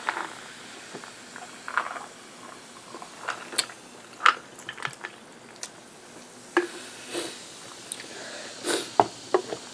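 A gulp of fizzy soda from a glass, then canned grape soda poured over ice into the glass, with sharp clicks of ice and glass a few seconds in and again near the end, over a light fizzing hiss.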